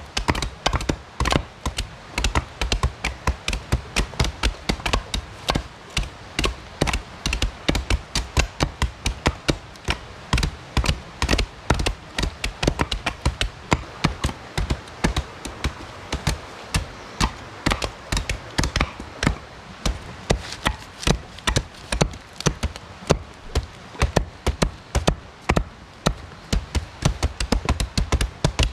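A blade chopping rapidly and steadily on a wooden board, about three to four strokes a second: plant material being minced.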